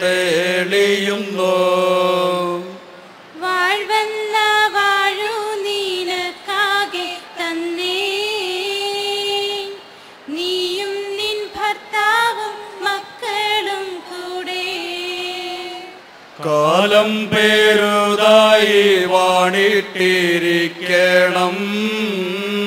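Mixed group of men and women singing an unaccompanied chant-like song. The men's lower voices lead at first, higher voices carry the middle part, and men and women sing together from about two-thirds of the way through.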